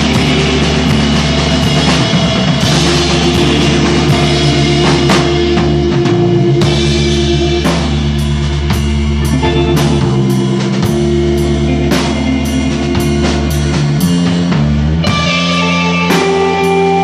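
Live stoner rock band playing loud: distorted electric guitar and bass holding heavy sustained chords over a steady drum-kit beat, with cymbal hits about twice a second.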